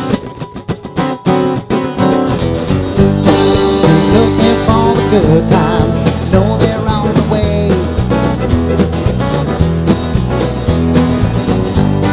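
Country song with acoustic guitar strumming alone at first, then the full band coming in about two seconds in with bass and a wavering lead melody, no singing.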